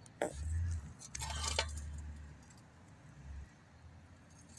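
Light metallic clinking and rattling: a single click just after the start, then a short cluster of rattles about a second in, over a low rumble.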